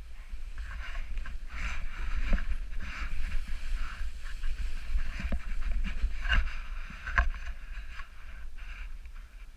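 A snowboard sliding and carving on groomed snow, its edge scraping in uneven surges, with a steady low rumble of wind on the microphone.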